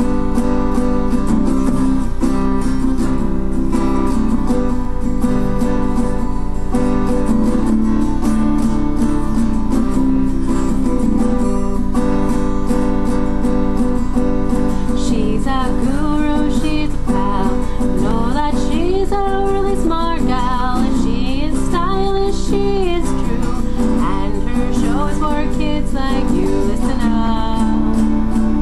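Intro music: a strummed acoustic guitar, with a singing voice coming in about halfway through.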